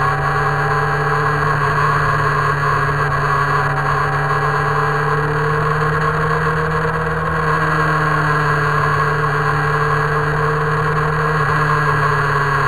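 Motorcycle engine running at a steady cruise, heard from a camera mounted on the moving bike, its note drifting slightly up and down, with a steady hiss of wind and road noise.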